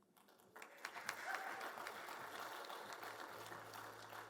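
Congregation applauding: a faint, light spatter of hand claps that starts about half a second in and thins out toward the end.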